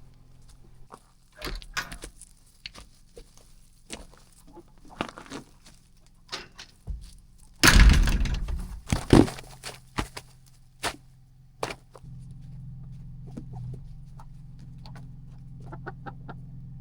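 Fowl clucking amid scattered knocks and clatters, the loudest a clatter about eight seconds in. A steady low hum comes in about twelve seconds in.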